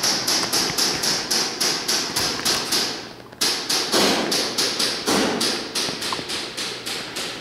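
Airsoft gun firing a fast, steady string of sharp cracks, about six or seven a second, with a brief pause about three seconds in.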